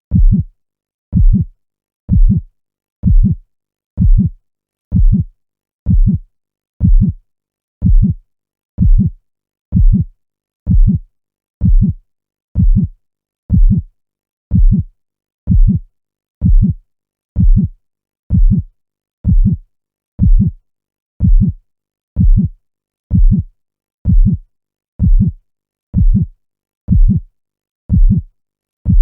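Heartbeat: a steady, even beat of low double thumps (lub-dub), a little faster than one a second, with silence between the beats.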